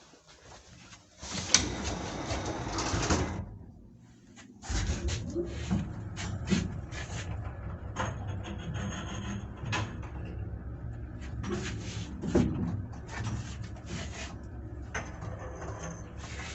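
1982 MLZ passenger lift: a couple of seconds of sliding, rattling door noise, then after a short pause the car sets off with a steady low hum. It rides on with repeated creaks, knocks and high squeaks, the guide shoes scraping along the guide rails.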